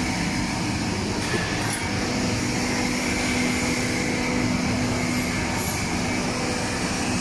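Continuous conveyor frying machine running on test, with its gas burner, oil pumps and mesh-belt motor going together: a steady mechanical noise with a steady low hum.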